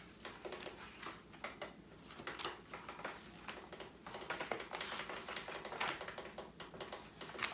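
A run of light, irregular clicks and taps with some paper rustling: plastic buttons being pressed on a portable CD player while book pages are turned.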